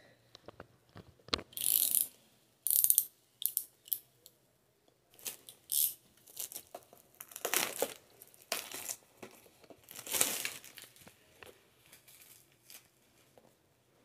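Clear plastic shrink-wrap being torn and peeled off a product box: a series of short, irregular crinkling rips with quiet gaps between them.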